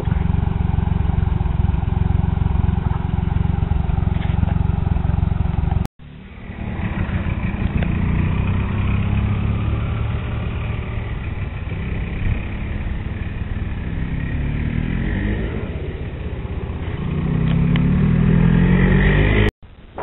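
Tractor engine running as it drives a New Holland square baler, a steady low engine note. It cuts out briefly about six seconds in, then carries on with its pitch rising and falling.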